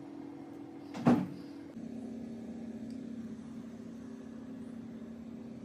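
A steady low hum, dropping slightly in pitch just under two seconds in, with a single sharp knock about a second in.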